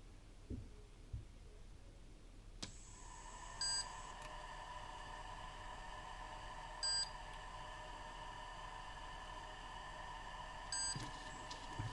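A steady high electronic whine that switches on with a click about two and a half seconds in. Short beeps sound over it about every three seconds, three times in all.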